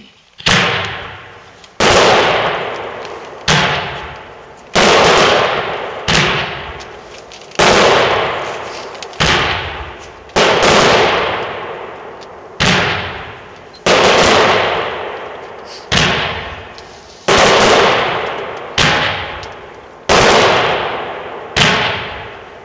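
A brocade crown firework cake firing shot after shot, about one every second and a half, each a sharp report that fades away over about a second.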